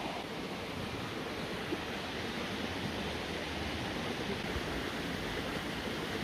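Steady rushing outdoor background noise with no distinct events, the kind made by wind on the microphone or running water.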